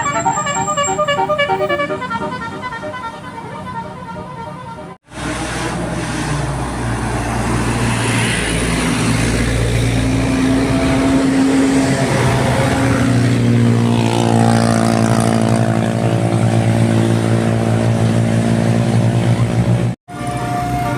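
Bus telolet musical horns playing a quick repeating tune of stacked notes. After an abrupt cut about five seconds in, a bus engine runs underneath long held horn tones that build into a sustained chord.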